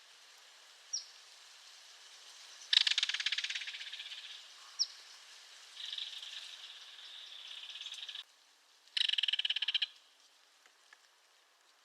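Belted kingfisher giving its dry rattling call in three bouts: a loud rattle about three seconds in that fades out, a longer one that stops suddenly, and a short loud one near the end. Two brief high chirps come between the rattles.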